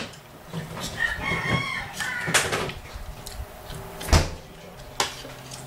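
A rooster crowing once, starting about a second in and lasting under two seconds, followed by a few sharp knocks, the loudest about four seconds in.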